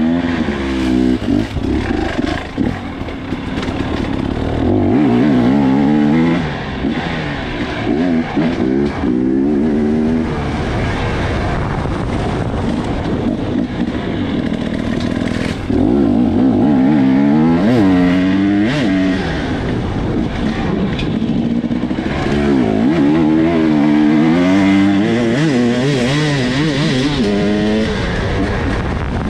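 Off-road motorcycle engine heard on board from the rider's helmet, revving up and falling back over and over as the throttle is worked through the trail.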